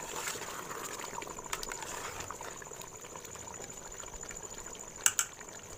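Chicken curry simmering in a metal pot, bubbling and crackling steadily, with a metal ladle stirring it and knocking against the pot a few times, most sharply about five seconds in.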